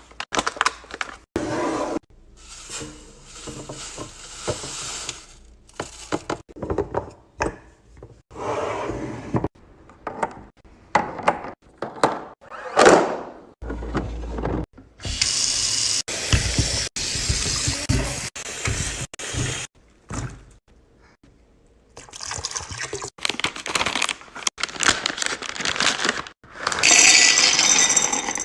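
Liquid being poured into containers in several short takes, with clinks and knocks from containers and food being handled.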